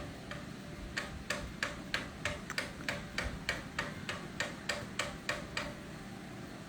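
A run of light, sharp clicks or taps, roughly three a second, that stop shortly before the end.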